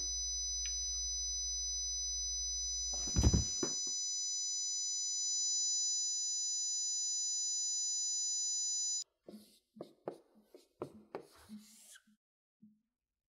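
A steady high-pitched ringing made of several pure tones over a low hum, with a short burst of noise about three seconds in. The ringing cuts off suddenly about nine seconds in, and is followed by short scratchy strokes of a marker writing on a whiteboard.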